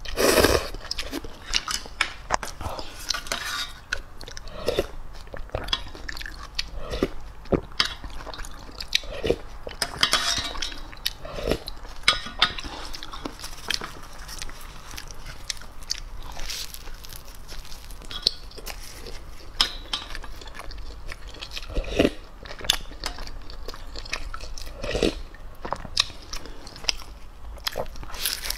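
Mukbang eating sounds: noodles slurped and chewed near the start, a metal spoon clinking and scraping in a metal pot, and near the end a bite into a piece of meat held in the hand. Many short clicks and smacks run throughout.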